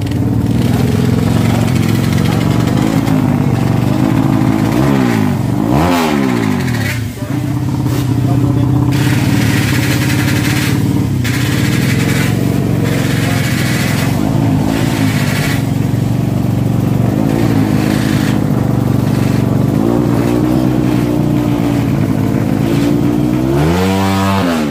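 Drag-race motorcycle engines running at close range and being revved, their pitch sweeping up and down several times, with a sharp rising rev near the end.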